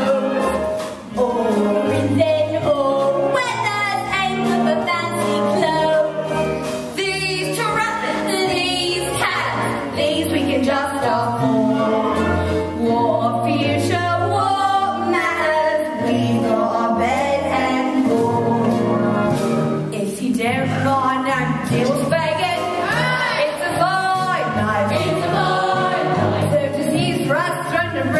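A stage cast singing a musical-theatre song, solo and group voices, over instrumental accompaniment.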